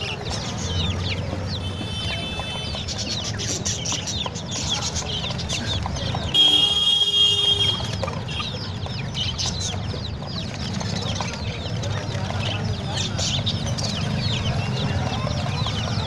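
Chickens clucking in a cage amid a constant din of many small caged birds chirping. A louder, drawn-out call rings out for about a second and a half, a little over six seconds in.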